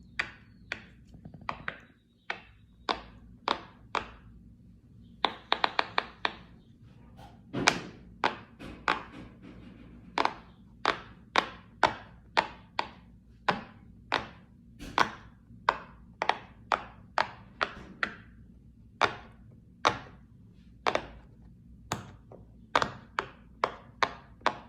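A fidget toy being pressed or popped over and over: sharp single taps or pops at roughly one to two a second, with a quick run of several together about five seconds in.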